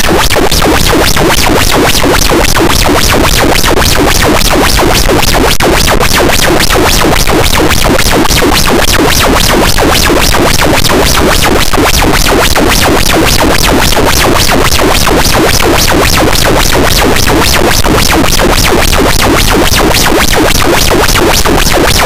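Harsh noise wall: a very loud, dense, unchanging wall of distorted noise filling the whole range of pitch, with a fast, even flutter running through it.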